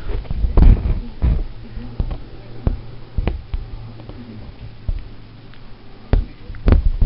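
Irregular soft thumps and handling rustles as a needle and embroidery thread are worked and pulled through taut fabric close to the microphone, with a low steady hum in the middle.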